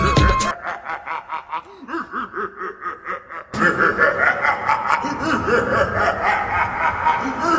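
Laughter in quick, rhythmic pulses, getting louder about three and a half seconds in. A music track cuts off about half a second in.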